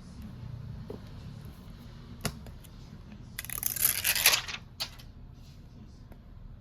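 A single sharp click, then about a second of tearing, loudest a little after the middle, with a smaller click just after it.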